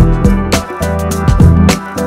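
Background music with a drum beat and a bass line.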